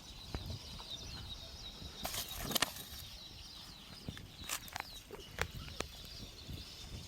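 Birds chirping steadily, with a brief loud noisy burst about two seconds in and a few sharp clicks later.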